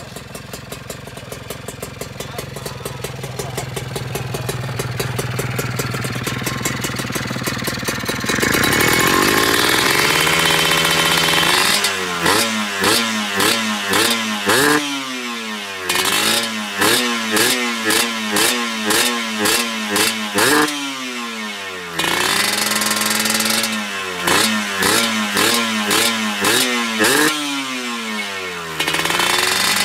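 Two-stroke Kawasaki Ninja 150 single-cylinder engine running with no exhaust pipe fitted, giving a raw sound like a chainsaw. It runs steadily and grows louder for the first several seconds, jumps in level, then from about twelve seconds in is blipped over and over, about two quick revs a second rising and falling in pitch, with a few short pauses.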